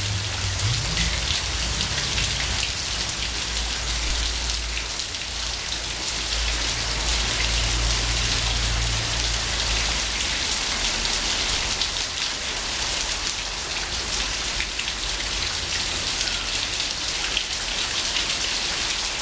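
Heavy rain falling steadily on a tiled roof and dripping thickly off the gutter edge, a dense even hiss full of drop patter. A low rumble sits underneath during the first half and then fades.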